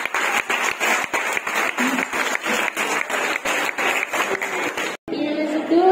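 Audience applauding: a dense run of many hands clapping that cuts off abruptly about five seconds in, where music with singing begins.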